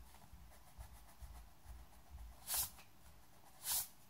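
Pencil scratching lightly on paper, then two short, louder swishes of something rubbing across the sheet, about two and a half and nearly four seconds in.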